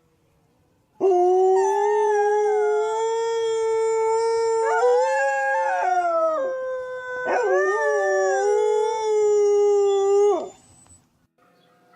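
Dogs howling together in long, drawn-out howls, at least two voices overlapping at different pitches. The howls start about a second in and break off shortly before the end.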